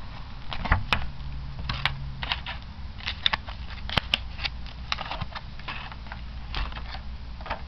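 Hands handling plastic-wrapped card-game inserts on a table: irregular crinkles, taps and rustles of plastic and paper.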